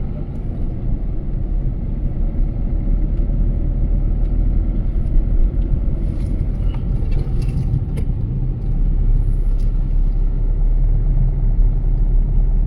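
A car driving along a road: steady engine and road rumble, with a few light knocks partway through.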